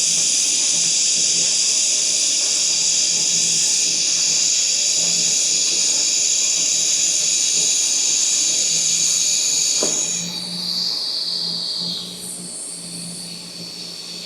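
Welding arc on a vehicle axle tube, a steady hiss for about ten seconds that then changes and drops in level.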